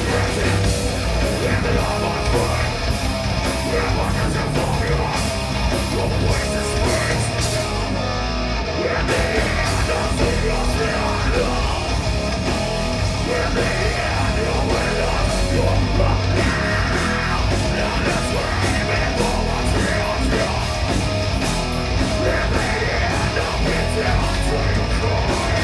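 Metal band playing live in a club, heard from the audience: heavily distorted electric guitars, bass and pounding drums with cymbals, and a vocalist's shouted singing in places. The cymbals drop out briefly about eight seconds in.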